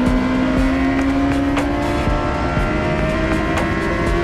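Suzuki GSX-R 750 inline-four engine running hard on track, its pitch rising steadily as the bike accelerates through a gear.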